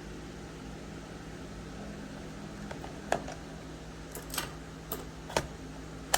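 A steady low hum, with about five sharp clicks or taps spaced irregularly through the second half.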